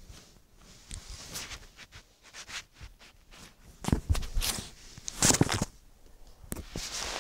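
Close handling noise: irregular clicks and rustles as small plastic Lego minifigure pieces are handled right by the phone's microphone, loudest about four seconds in and again just after five seconds.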